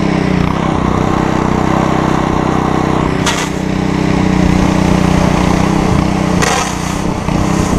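Simpson MSH3125 gas pressure washer running steadily, its engine under the hiss of the water jet from the wand. The pump has air in the line and is just coming back up to pressure. The spray hiss swells briefly twice, about three seconds in and again about six and a half seconds in.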